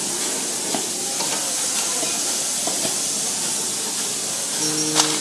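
Semi-automatic transformer tin-dipping machine working with a steady hiss and a few light clicks. Near the end, a short low buzz and one sharp click.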